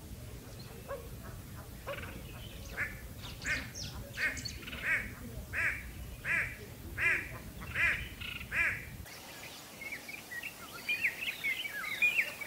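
Wreathed hornbill giving a series of about nine loud honking calls, roughly one every three-quarters of a second. After the calls stop, small birds chirp in quick bursts.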